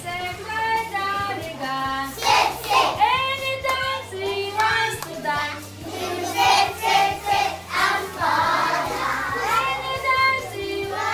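A group of young children singing together in unison, with a low backing music track playing underneath.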